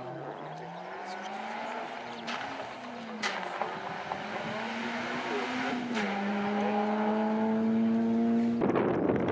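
Peugeot 106 rally car engine running hard through the gears: the pitch climbs, drops at gear changes about two and six seconds in, then holds steady, with a few sharp cracks along the way. Near the end it is swamped by a loud rush of wind noise on the microphone.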